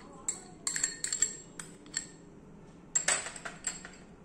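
Metal spoon clinking and scraping against a small steel mixer-grinder jar and glass bowls: a run of short, sharp clinks, busiest about a second in and again about three seconds in.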